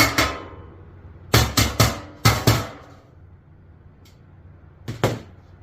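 A hammer striking sheet-metal pieces to lock a duct fitting's seams together: sharp metallic blows with short ringing, in quick groups of two or three: two at the start, three about a second and a half in, two more just after, and a last pair near the end.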